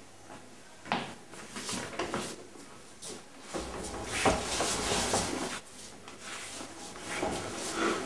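Knocks and clattering of hard objects being handled: a couple of sharp knocks, then a stretch of rattling and bumping.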